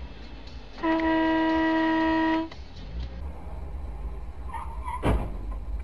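A car horn sounds one steady blast of about a second and a half, starting about a second in. Near the end there is a single sharp bang.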